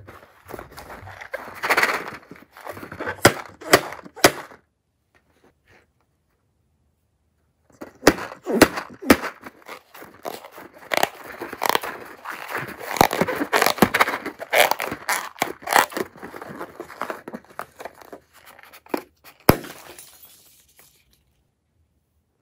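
Hands squeezing a filled rubber balloon and pressing it into a tray of slime: dense crackling, popping and squishing. The sound breaks off for about three seconds about four seconds in.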